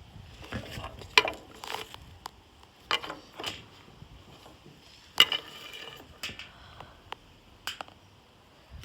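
Handling noise from a toy and its packaging being moved about: scattered light clicks and knocks with faint rustling, the sharpest about a second in and again about five seconds in.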